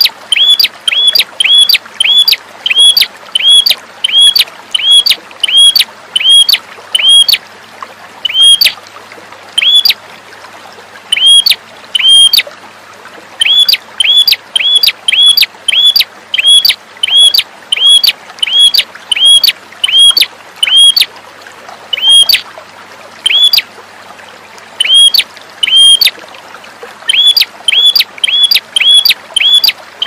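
Red-headed prenjak (perenjak kepala merah) calling: one short, sharp note with a quick upward flick, repeated about twice a second in long runs with a few short pauses. A faint steady hiss lies underneath.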